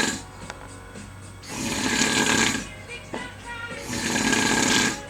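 A man snoring in his sleep. There are two loud, rasping snores about two and a half seconds apart, each lasting about a second, and the tail of another snore at the very start.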